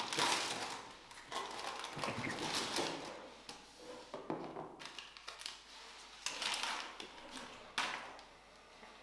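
Cardboard packaging rustling and scraping, with a few light knocks, as the vacuum body is pulled out of its box and its cardboard inserts.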